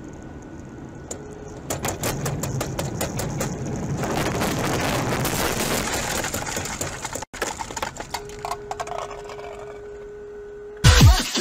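Dashcam audio of a car driving on a wet road: road noise with a rapid flurry of clicks and rattles, then a single steady tone for about three seconds. Electronic music comes in right at the end.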